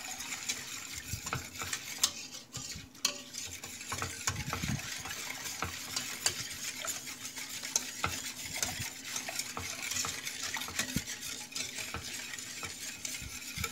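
Wire whisk beating a cold milk, sugar, flour and starch mixture in a stainless steel pot: a steady swishing with frequent light clicks of the wires against the pot. The batter is whisked smooth before the heat goes on so the pudding won't go lumpy.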